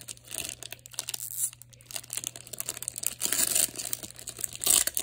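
Trading cards and their crinkly packaging being handled: rustling and crinkling in quick, irregular bursts, louder near the end.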